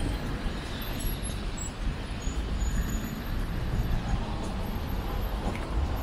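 City street traffic noise: a steady wash of passing vehicles with a heavy low rumble and a few faint, brief high squeaks.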